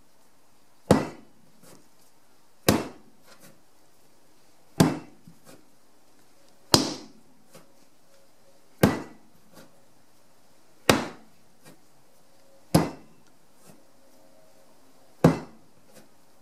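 A small lump of moist clay thrown down hard onto a table again and again, eight heavy slaps about two seconds apart. It is being wedged, turned between throws into a pyramid shape to mix the clay and drive out air pockets.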